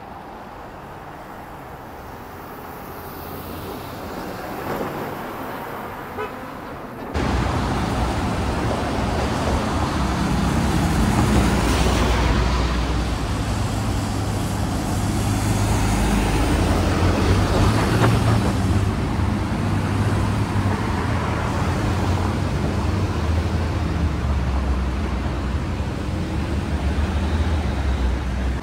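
Street traffic on a wet road, with vehicles passing. After a sudden cut about seven seconds in, the deep, steady rumble of a heavy truck's diesel engine dominates.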